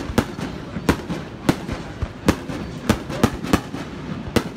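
A series of sharp bangs at an irregular pace, about ten in four and a half seconds, over a steady background noise.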